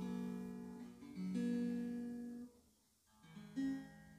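Background music played on acoustic guitar, held plucked notes that break off briefly about two and a half seconds in and then resume.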